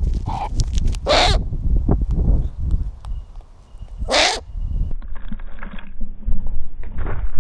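Eurasian eagle-owl moving and flapping close to the microphone: several short, loud rushes of noise, one about a second in, one around four seconds and one near the end as it swoops down, over a steady low rumble.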